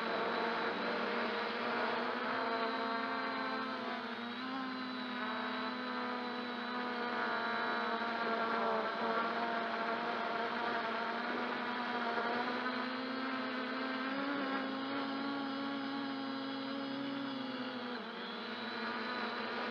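MJX Bugs 2W quadcopter's brushless motors and propellers buzzing in flight, heard from a camera mounted on the drone. The pitch shifts up and down with the throttle, dipping briefly near the end.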